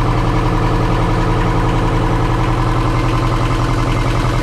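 Inboard marine diesel engine idling: a steady, loud low drone with a fast, even pulse.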